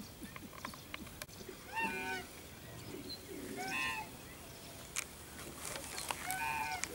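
A bird calls three times, about two seconds apart. Each call is short and rises slightly, then falls in pitch. A few faint sharp clicks are heard between the calls.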